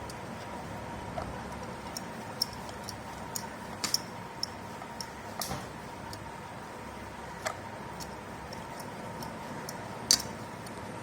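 Wooden rolling pin rolling out a ball of dough on a board, with light clicks and taps as it goes back and forth, often about two a second, and a sharper knock near the end.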